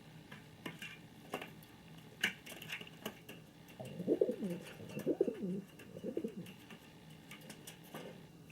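King pigeon cooing: three low, swooping coos about a second apart, after a few light clicks.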